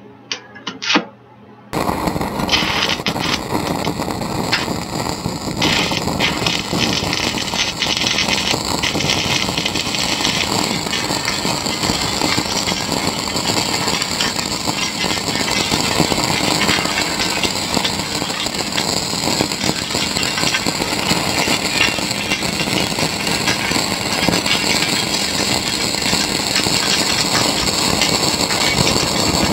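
Stick-welding arc of an E6013 (Fleetweld 36) electrode running a fillet weld, with a steady, loud crackle. A few short clicks come first, and the arc catches about two seconds in.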